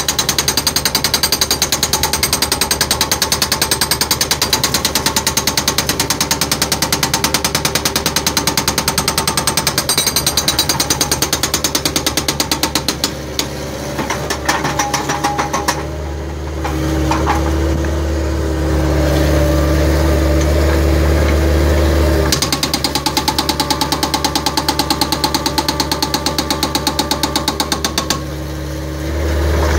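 Bobcat skid-steer's hydraulic breaker hammering a concrete step with rapid, steady blows. A little past halfway the blows stop for several seconds and the loader's engine is heard running up on its own. Then the hammering resumes and stops again shortly before the end.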